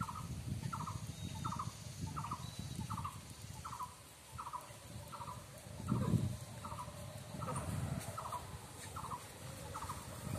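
A short, pulsed animal call repeated in an even rhythm, a little more than once a second, over a low rumble, with a louder bump about six seconds in.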